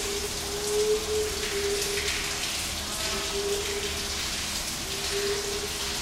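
A large green pigeon cooing: four low, drawn-out hoots, each under a second long, at uneven intervals, over a steady rain-like hiss.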